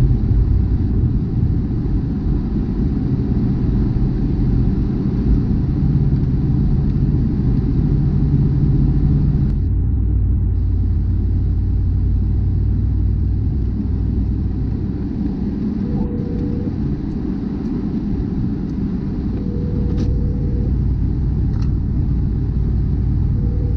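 Steady low rumble of a car's engine and tyres heard from inside the car while driving on the snowy interstate, with a shift in the engine note about ten seconds in. A short faint tone sounds three times in the second half.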